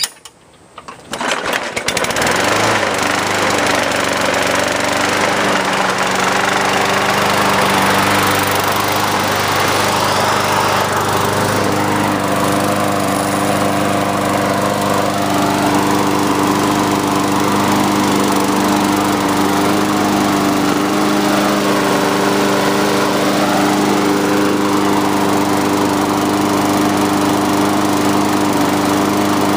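Briggs & Stratton single-cylinder four-stroke engine on a Craftsman push mower, which has no choke or primer, pull-started: it catches about two seconds in and then runs steadily at one speed.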